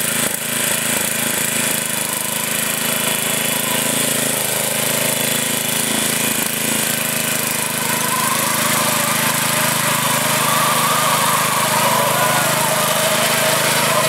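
Riding lawn mower's small engine running steadily under load as it pushes through mud and water. From about eight seconds in, a wavering higher sound joins it.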